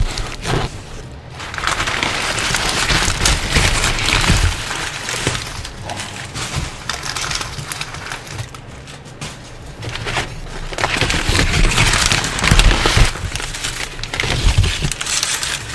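Crumpled brown packing paper crinkling and rustling as it is pulled out of a cardboard box by hand, in two long stretches with a quieter spell in the middle.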